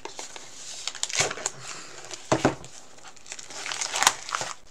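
Plastic wrapping crinkling and tearing as it is pulled off a cardboard box, in irregular crackly bursts.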